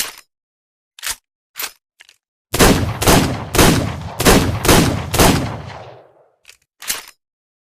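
Revolver sound effect: a few sharp clicks, then six gunshots in quick succession about half a second apart, their echo fading out, followed by two more clicks.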